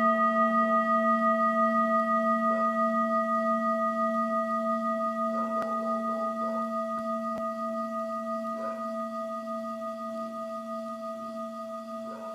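A singing bowl rings out, one low tone with several higher overtones, slowly dying away with a steady wavering beat.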